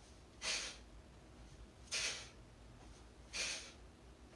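Sharp, forceful exhales, three of them about one and a half seconds apart. Each is a power breath at the top of a one-arm kettlebell swing.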